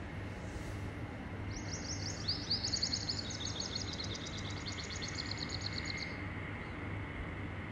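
Small birds chirping in fast trills, several runs overlapping, for a few seconds in the middle, over a steady background hiss and low hum.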